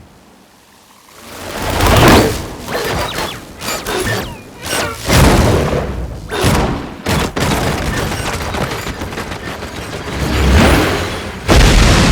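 Designed cinematic fight sound effects: after a quiet second a whoosh swells up, then a run of booms and sharp impacts over a steady rumble, with a heavy boom near the end.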